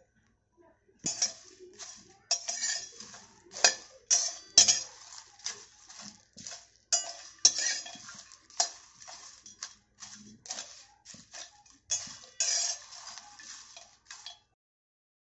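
Metal spatula scraping and clinking against a hammered stainless steel kadhai as dry bay leaves, cinnamon sticks and stone flower are stirred during dry-roasting. Irregular scrapes and knocks begin about a second in and stop shortly before the end.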